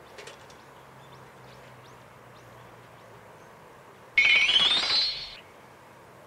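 An alert sound effect added in editing: a short tone that rises in pitch, starting suddenly about four seconds in and cutting off after about a second. It goes with an exclamation-mark pop-up that flags a fish strike.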